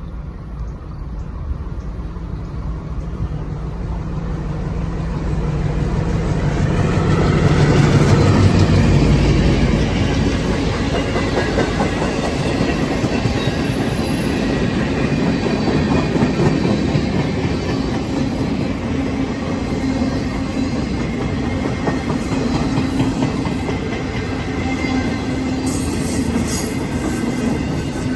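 LIRR MP15AC diesel switcher passing with its EMD 12-645 engine running: the engine hum builds to its loudest about eight seconds in, then gives way to a steady clickety-clack of wheels over rail joints as the cars roll past.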